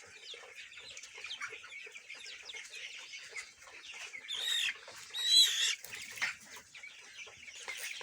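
A large flock of month-old colour-bird chickens (coloured broilers) peeping and clucking continuously, with two louder squawking calls about halfway through.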